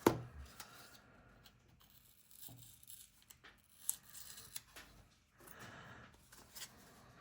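Zippo lighters and their packaging being handled: a sharp click about the start, then soft rustling and scattered small clicks and taps.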